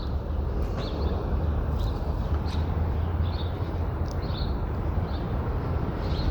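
Steady low rumble of city traffic, with small birds chirping faintly now and then.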